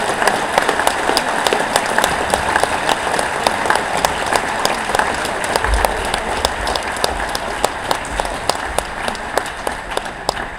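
Large audience applauding: a dense wash of many hands clapping that gradually thins and fades toward the end.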